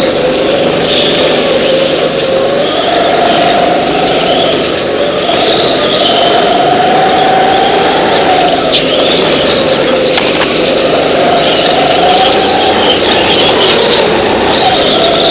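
Go-kart engine running hard, its pitch climbing on each straight and dropping again into the corners, every few seconds.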